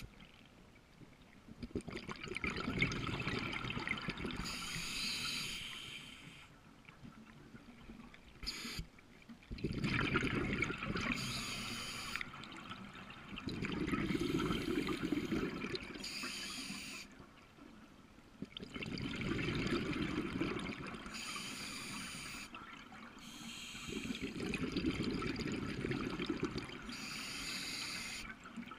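Scuba diver breathing through a regulator underwater. Each short hissing inhale is followed by a longer bubbling rush of exhaled air, in a regular cycle about every five seconds.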